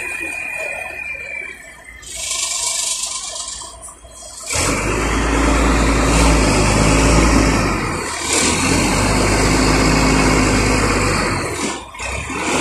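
Hino Ranger tronton truck's diesel engine running with a loud, steady low rumble. It comes in suddenly about four and a half seconds in and drops away near the end. Before it there is a hiss lasting a couple of seconds.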